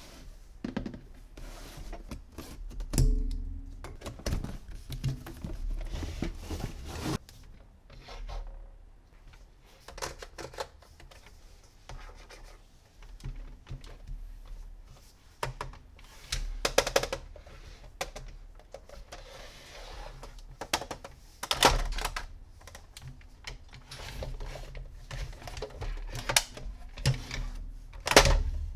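Hard plastic toy vehicles being handled: irregular clicks, taps and knocks of plastic parts, with a few louder knocks.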